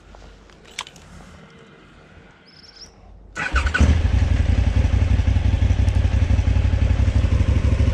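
Yamaha Serow's single-cylinder engine started about three seconds in, catching at once and settling into a steady, evenly pulsing idle. A few light clicks and taps come before it.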